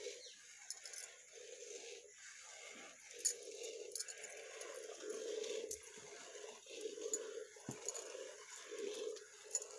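Cow being milked by hand with two hands: squirts of milk hitting a steel bowl in a steady run of short, repeating spurts.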